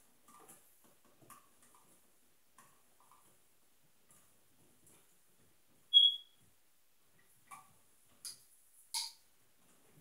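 Faint, small clicks of wire strippers handling electrical wires at a plastic switch box. There is one short, loud, high-pitched squeak about six seconds in, and a few sharper clicks near the end.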